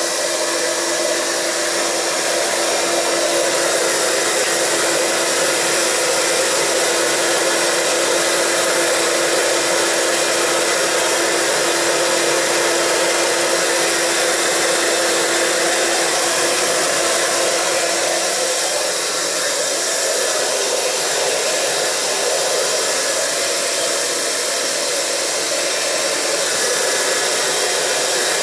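Handheld hair dryer running steadily, blowing air over damp hair: an even rush of air with a steady motor hum that fades out about two-thirds of the way through.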